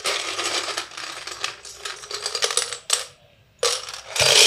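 Loose plastic keycaps clattering and clicking against each other as a hand rummages through them, in a long burst, then after a short pause another burst that is loudest near the end.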